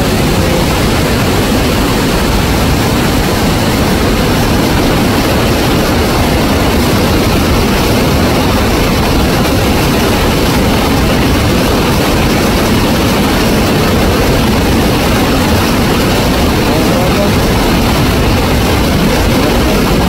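Loud, steady rushing of water at a waterfall.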